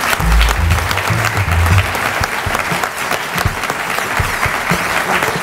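Audience applauding: many hands clapping in a dense, steady patter. Music with a low bass runs under it for the first two seconds.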